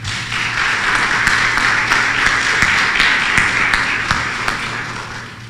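Audience applauding, starting at once and fading toward the end.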